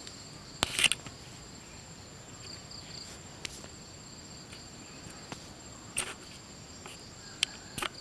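Steady high-pitched insect chorus from the field, holding two high tones throughout. A few sharp short rustles or clicks cut through it, the loudest a little under a second in, others about six seconds in and near the end.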